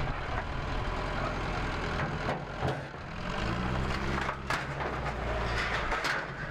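A heavy vehicle's engine running, its pitch climbing for a stretch in the middle, with a few sharp knocks among it.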